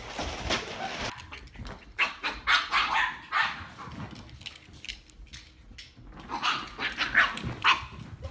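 A dog barking in rapid bouts, one about two seconds in and another about six and a half seconds in.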